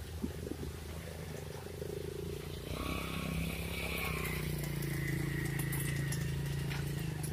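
Vehicle engines running: a steady low hum from the Mitsubishi Fuso dump truck's diesel, joined about three seconds in by a small motorcycle riding past close by, which makes it louder, its pitch dropping slightly as it goes by.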